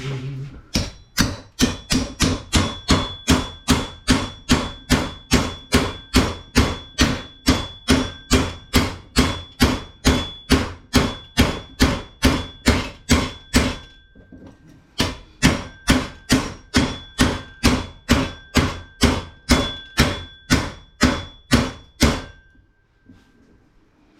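Machete being driven through a spool of paper-insulated copper wire in a long run of steady strikes, two to three a second, each with a short metallic ring. There is a brief pause at about 14 s, and the strikes stop shortly before the end.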